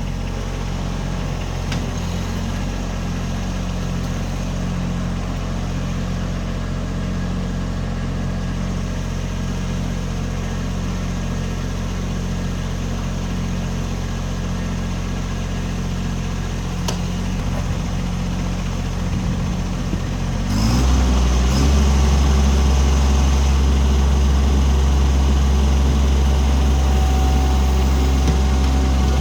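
Kubota B2301 compact tractor's three-cylinder diesel engine running steadily at low revs. About two-thirds of the way through, the throttle is opened: the engine note rises over about a second and then runs louder and steady at the higher speed, as for backhoe digging.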